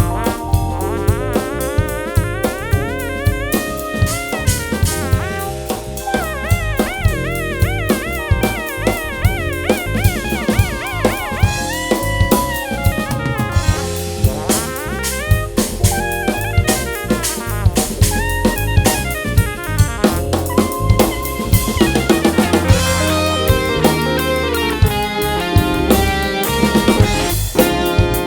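Instrumental band music: a drum kit keeps a steady beat under bass and held keyboard chords, while a lead line plays with a wide, wavering vibrato. The playing grows busier near the end.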